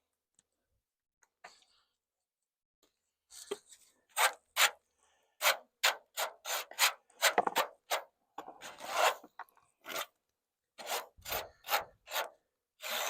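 Hive tool scraping wood in a run of short, quick strokes, about two a second, starting a few seconds in: scraping junk off the bottom of a beehive box or frame.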